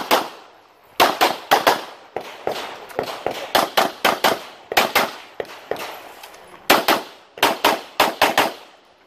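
Rapid handgun shots during a USPSA stage. They come mostly in quick pairs (double taps on each target), fired in strings with short pauses between them.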